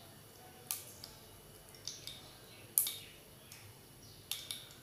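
Mustard seeds popping in hot oil in a kadhai during tempering: about six sharp, separate pops scattered over a faint hiss.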